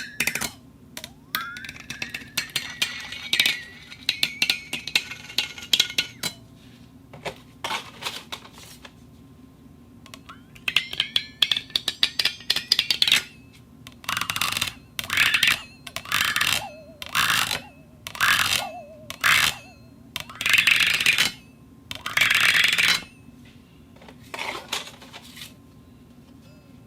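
A cup scraping and rubbing against the glass and metal plate of a rotating table, in a run of separate strokes with clinks. Some strokes ring with a high tone.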